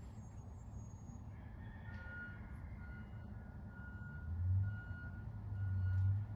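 A vehicle's reversing alarm beeping about once a second, starting about two seconds in, over a low rumble that swells twice in the second half.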